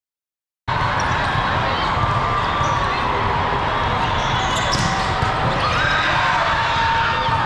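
Silence, then under a second in the steady din of a volleyball tournament in a big echoing hall starts: many voices from players and spectators, with ball hits and short shoe squeaks on the court.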